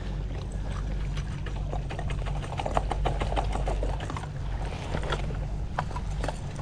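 Water trickling and splashing around a kayak, with many scattered small clicks and a steady low rumble underneath.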